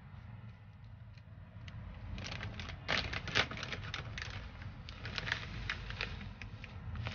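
Plastic packet of black sesame seeds being handled and opened: a rapid run of crinkling rustles and clicks that starts about two seconds in and is loudest around three seconds.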